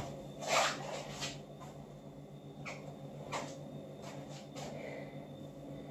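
A few short, soft rustles and scuffs of a person moving about and handling something, most of them in the first half, over a faint steady hum.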